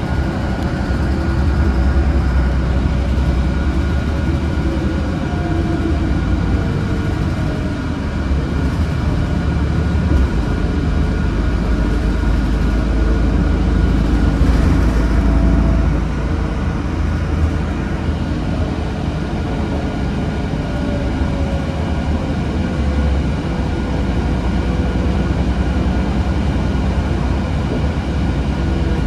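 Transit bus under way, heard from inside the cabin: a steady low engine and road rumble, with a faint whine that slides slowly in pitch as the speed changes.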